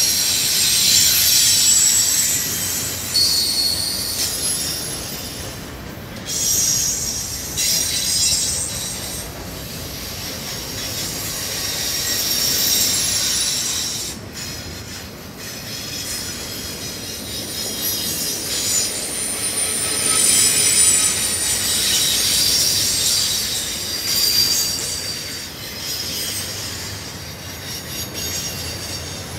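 Freight train cars rolling past close by: a steady rumble of wheels on the rails with high-pitched wheel squeal that comes and goes.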